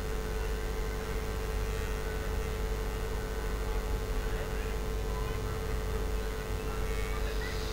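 Steady droning hum on one pitch over a low rumble, with a few faint higher chirps.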